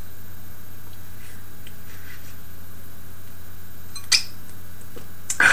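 A person biting into and sucking on a raw lemon wedge, giving two short wet slurps about four seconds in and near the end, the second the louder, over a steady low electrical hum.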